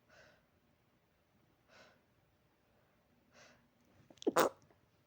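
A person sneezing: three soft breaths about a second and a half apart, then one loud, sharp sneeze near the end.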